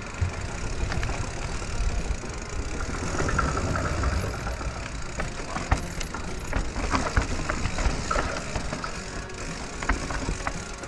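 Radon Swoop enduro mountain bike rolling fast down a dirt and rock trail: tyres running over the ground and the bike rattling, with many short sharp knocks from bumps and stones. Wind rumble on the camera microphone runs underneath.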